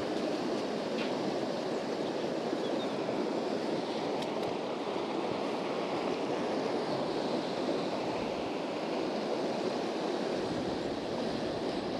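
Fast river current rushing steadily over stones, with a couple of faint clicks.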